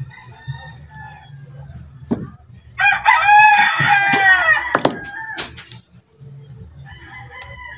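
A rooster crowing once loudly for about two seconds, with a few sharp knocks around it.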